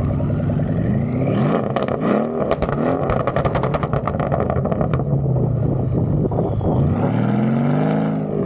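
Straight-piped Mercedes CLS 550 twin-turbo V8 with a burble tune, revved in short rising blips, then a rapid string of exhaust pops and crackles about two to five seconds in. It settles to a low burble, then revs up again near the end.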